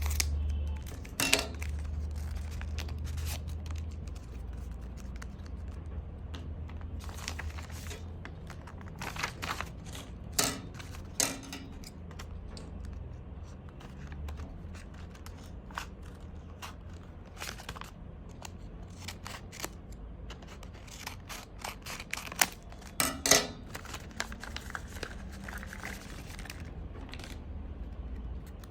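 Blind bag packaging being opened by hand: crinkling, tearing and snipping with many sharp clicks. The loudest bursts come about a second in, around ten seconds in and around twenty-three seconds in, over a low steady hum.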